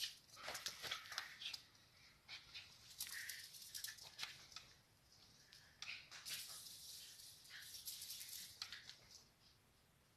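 A Chihuahua scrambling about on a bed: its paws scratching and the bedding rustling in short, scratchy bursts and light clicks.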